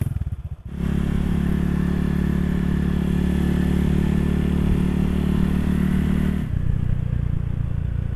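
Honda Vario scooter engine with a replica Tsukigi Proliner aftermarket exhaust, starting with a brief uneven burst and then running with a steady exhaust note. About six and a half seconds in, the note shifts lower and a little quieter.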